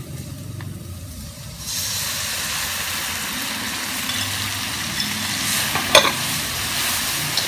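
Sweet-and-sour sauce mixture poured into a hot wok of corn and carrot: about two seconds in the wok breaks into a loud hiss as the liquid hits the hot metal, then keeps sizzling steadily while the corn is stirred. There is one sharp knock near the end.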